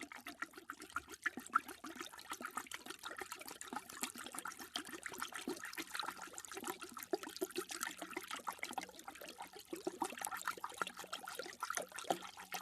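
A dog lapping water, many quick wet laps in a continuous run.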